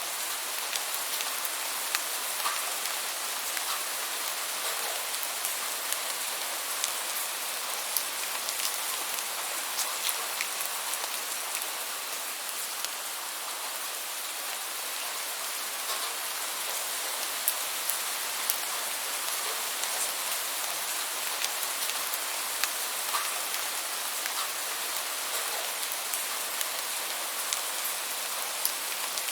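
Steady rainfall: a continuous hiss of rain with many separate drops ticking on a hard surface.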